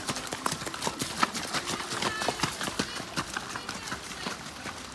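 Hoofbeats of several ponies trotting on wet arena sand, a quick, irregular patter of hoof strikes close by.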